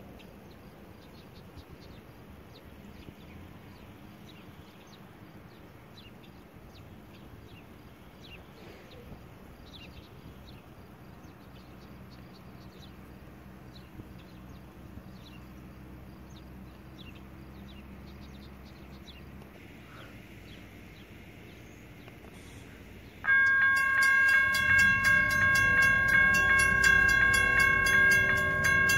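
A faint, distant rumble of the approaching CSX freight's diesel locomotives, then a grade-crossing warning bell that starts ringing suddenly about 23 seconds in, loud and fast with steady repeated strikes, as the gates come down. The train's low rumble grows under the bell near the end.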